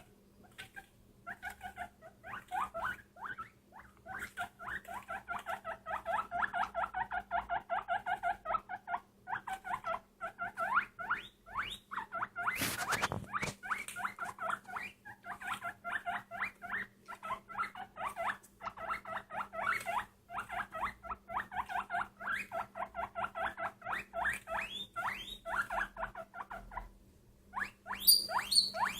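A small pet animal squeaking in a rapid, almost continuous run of short squeaks that stops shortly before the end. A short, sharp rustling noise cuts through about halfway.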